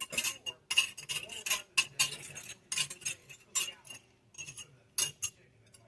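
A metal utensil scraping and clinking against a casserole dish in quick, irregular strokes, with a faint ring after some strikes, as the egg mixture is spread evenly over the casserole. The strokes thin out about a second before the end.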